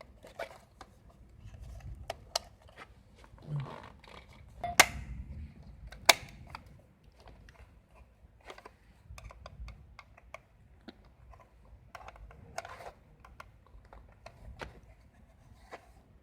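Scattered small clicks and taps of tools and parts being handled on a workbench, with two sharp, louder clicks about five and six seconds in.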